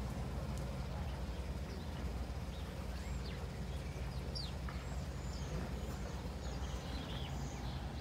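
Steady low hum with small birds chirping over it in short, high calls, starting about two and a half seconds in.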